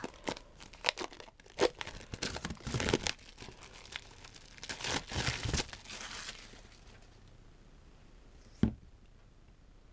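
Clear plastic wrapping crinkling and tearing in hand as a pillar candle is unwrapped, in crackly bursts over the first six seconds or so. Then quiet, and a single knock near the end.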